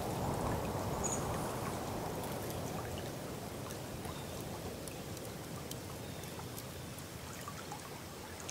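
Water trickling: a soft, steady rush that slowly gets quieter, with scattered faint drips or ticks.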